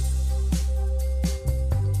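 Background music with a steady drum beat over deep, sustained bass notes.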